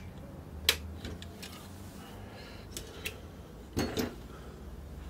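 Clicks and clinks from the metal and plastic parts of a copier fuser unit being handled. One sharp click comes about a second in, with lighter ticks later. Two heavier knocks come near the end as the unit is turned over and set on the bench.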